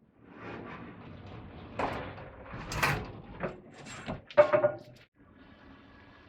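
Scraping, creaking and knocking as galvanized steel pipe levers lift a heavy tank-type water heater, with the loudest event a ringing metallic clank about four and a half seconds in.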